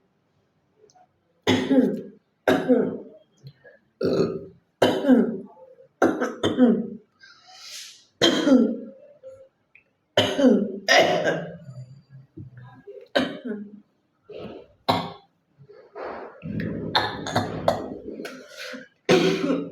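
A woman coughing over and over, short hard coughs coming roughly once a second, with one longer throat-clearing sound about three-quarters of the way through.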